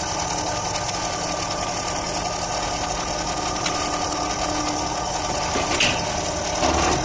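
Rotary 37° flaring machine running steadily as it flares copper air-conditioning tube, a continuous mechanical hum with a few steady tones.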